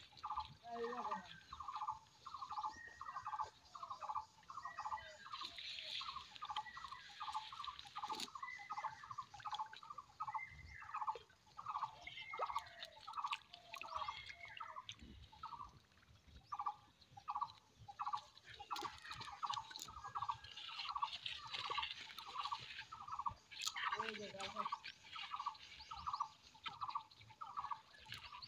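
A bird calling a long run of short, evenly repeated notes, about two or three a second, with a few faint clicks in between.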